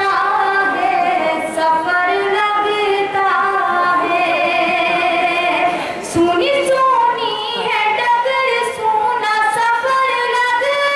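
A woman singing an Urdu ghazal solo in long held notes that slide and bend in pitch.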